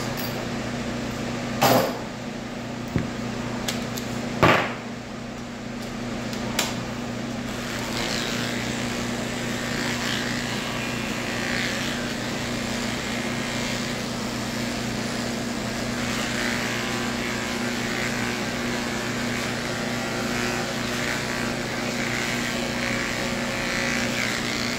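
Electric pet clippers running with a steady hum, with a few sharp clicks in the first five seconds, then shaving through a Persian cat's fur with a rustling hiss from about eight seconds in.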